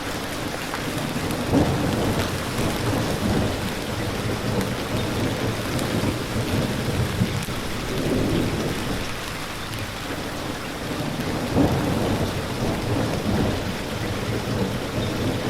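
Rain falling steadily, a dense even hiss, with low rumbling swells rising and fading a few times.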